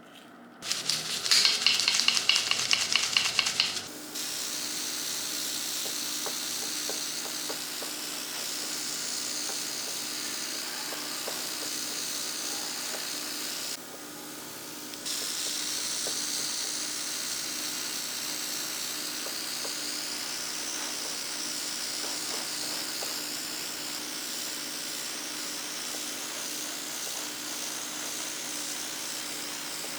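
A loud, rapid mechanical buzzing for about three seconds, then a steady spraying hiss over a faint steady hum. The hiss stops for about a second around halfway and starts again.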